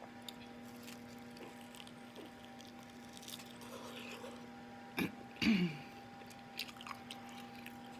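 Eating sounds of someone chewing fufu and egusi soup: scattered wet mouth smacks and clicks, with a short voiced sound, falling in pitch, about five seconds in.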